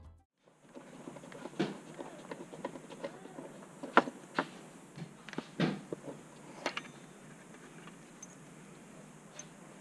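Scattered light clicks and knocks of hands handling bolts and fittings at the base of a car seat, the sharpest about four seconds in, over a faint steady hiss.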